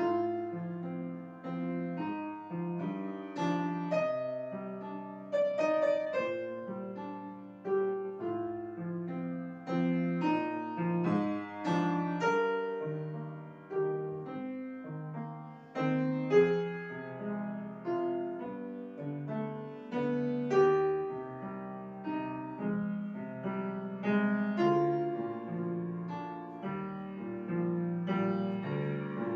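Grand piano played solo: a lyrical classical-style piece, a steady flow of notes and chords with a stronger accented chord every few seconds.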